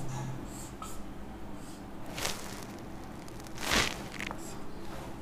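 Marker pen stroking across a whiteboard: a few faint, short scratchy strokes, the clearest about two seconds in and just before four seconds, over a low steady hum.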